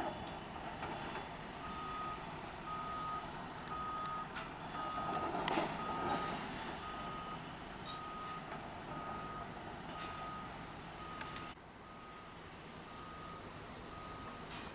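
Reversing alarm on construction machinery beeping steadily about once a second over steady site noise, with a sharp knock about five seconds in.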